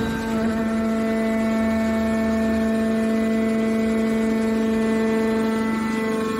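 Hydraulic can baler's power unit running with a steady hum.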